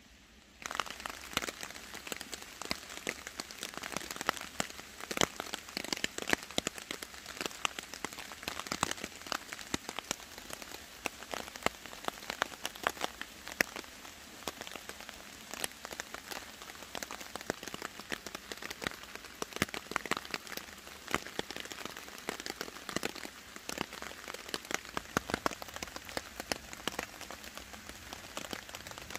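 Heavy rain falling on woodland, a dense, steady patter of many individual drops hitting. It starts abruptly about half a second in.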